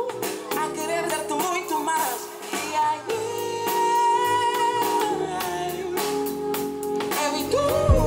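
Live band music: a singer holding long notes over a drum kit, electric bass and a Roland keyboard, with regular drum hits.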